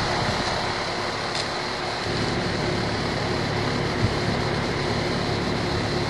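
Air-conditioning condenser fan running steadily, a constant rush of air through the top grille.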